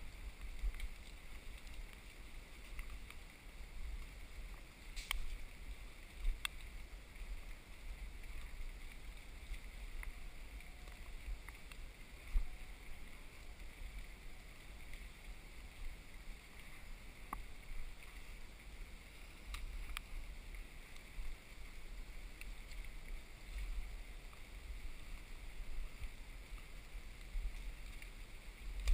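Steady low rumble of wind and handling noise on a hand-held camera's microphone, with the hiker's footsteps on a muddy trail and a few sharp clicks about 5, 6 and 20 seconds in.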